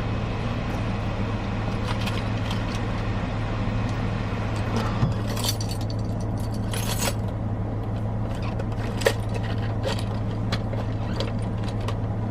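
Steady low hum inside a car cabin, with scattered small clicks and scrapes and two brief louder rustles about five and seven seconds in, from the camera being handled.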